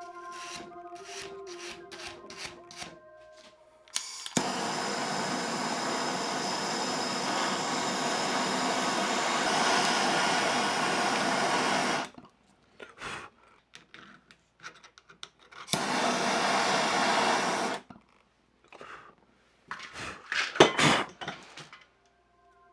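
Drill running a countersink bit into a steel cold shoe: one long steady run of about eight seconds, then a shorter run of about two seconds, with clicks and knocks of handling between and after. Background music fades out in the first few seconds.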